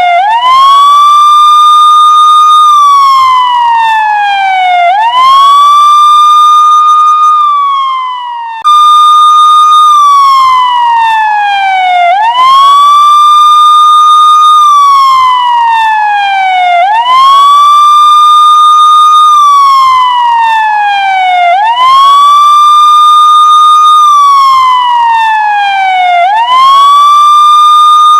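Police car siren on a slow wail: each cycle rises quickly, holds its high note for about two seconds, then falls away slowly, repeating roughly every five seconds. About eight seconds in the sound fades briefly and cuts straight back in on the high note.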